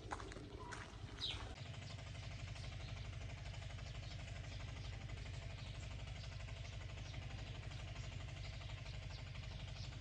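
A couple of bird chirps, then from about one and a half seconds in a vehicle engine runs steadily with a low, evenly pulsing rumble.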